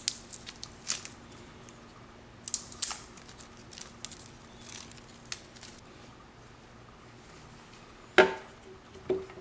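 Plastic packaging being handled: scattered crinkles and clicks in the first few seconds. About eight seconds in comes a sharp knock with a brief ringing, then a softer knock a second later.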